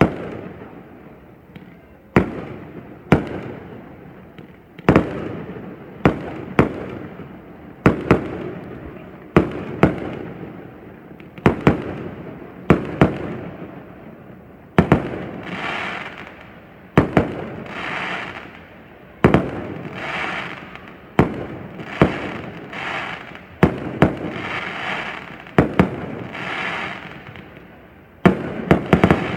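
Aerial fireworks bursting, a sharp bang about every second, each followed by an echoing rumble. From about halfway, many bursts trail off into a crackling hiss, and several bangs come in quick succession near the end.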